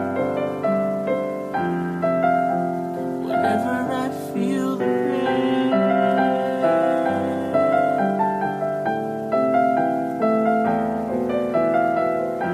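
Solo piano playing a slow, gentle instrumental passage of chords and melody, each note struck and left to ring.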